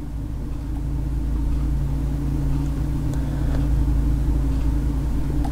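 A steady low hum that grows louder over the first second or so and then holds level.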